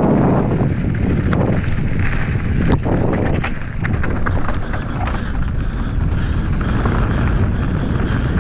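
Wind buffeting the camera microphone as a Transition Sentinel mountain bike descends a rocky dirt trail. Knobby tyres roll over gravel and stones, with scattered sharp clicks and rattles from the bike over the rough ground.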